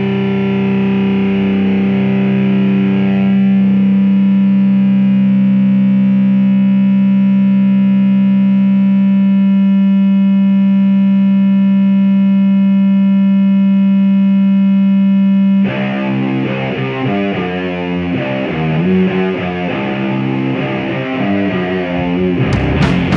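Distorted electric guitar through effects holding one sustained note, which cuts off abruptly about fifteen seconds in and gives way to a run of quickly changing notes. Drum hits start near the end.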